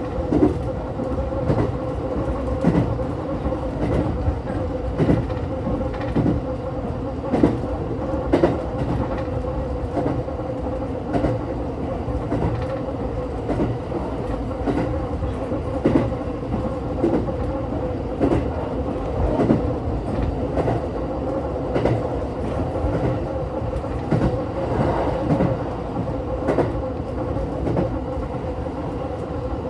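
JR West 227 series 1000 electric train running on jointed track, its wheels clacking over the rail joints every second or so, over a steady running rumble and a thin steady hum, heard from inside the front of the car.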